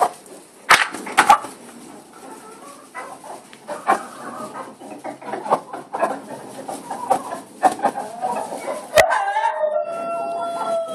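Flock of domestic chickens clucking busily, with a few sharp knocks. About nine seconds in, one bird gives a long drawn-out call that falls away at the end.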